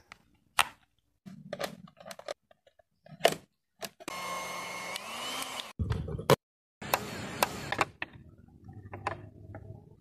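Plastic retaining clips of a Mazda 3 side mirror cracking and snapping one after another as the mirror glass is pried out with a plastic card, the sound of parts that break easily under this job. About four seconds in there is a steady humming stretch of nearly two seconds.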